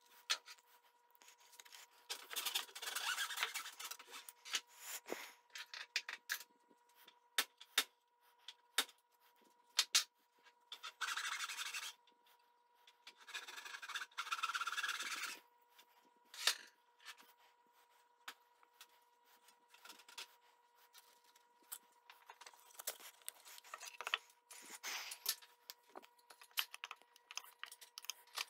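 Small wooden trim pieces being handled, rubbed and scraped against a wooden box, with scattered clicks and taps. Three stretches of rasping rubbing stand out: about two seconds in, and twice more around the middle.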